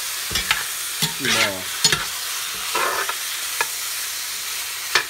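Pork pieces searing in hot oil in a cast iron pot, sizzling steadily, while a metal roux spoon stirs them, scraping and clinking against the bottom of the pot several times.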